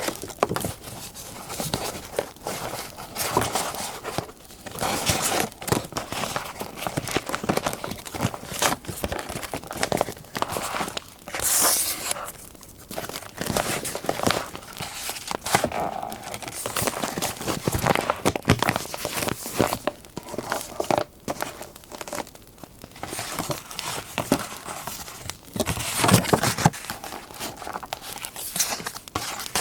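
Paper being handled for a scrapbook collage: crinkling, rustling and tearing, with many small irregular taps and scrapes. A brief sharp tear-like rasp comes about a third of the way in.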